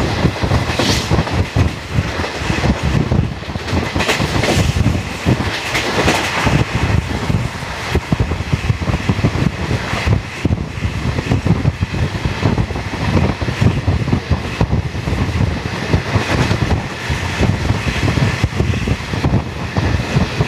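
Indian Railways passenger coach running along the track, heard at its open door: a steady rumble of wheels on rail with a dense, irregular clatter of wheel clicks over the track.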